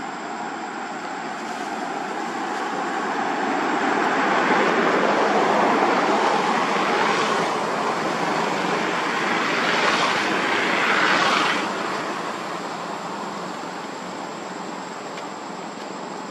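A passing motor vehicle: a steady rush of engine and road noise that builds over a few seconds, holds through the middle, then fades away.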